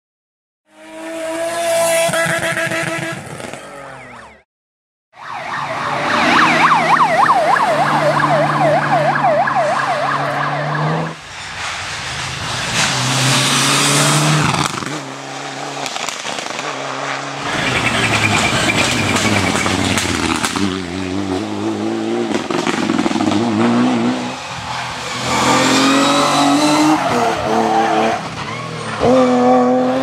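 Rally cars at full race pace in a series of short passes, engines revving hard, their pitch climbing and dropping through gear changes and braking. There is a short silence about four seconds in.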